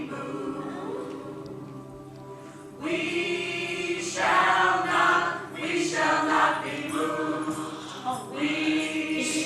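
A group of voices singing together in slow, held notes, a choir-like melody that grows louder about three seconds in.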